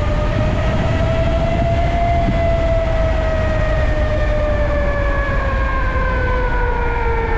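High-power e-bike electric motor whining under full throttle, its pitch rising a little for about two seconds, then falling steadily once the throttle is released and the bike slows with the motor regenerating. Wind rumble on the microphone underneath.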